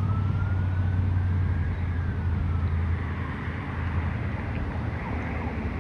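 Faint emergency-vehicle siren wailing: one slow rise and fall that fades out about three seconds in, over a steady low rumble.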